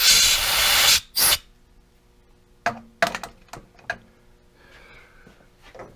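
Compressed-air blow gun blasting chips out of a freshly tapped hole: one loud hiss of about a second, then a short second blast. After that come several light clicks and knocks.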